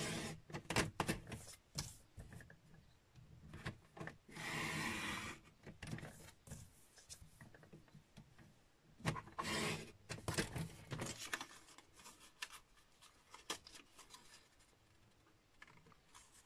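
Stampin' Up! paper trimmer cutting designer series paper: the blade carriage slides along the rail in one scrape lasting about a second, among clicks and taps of the paper and trimmer being handled.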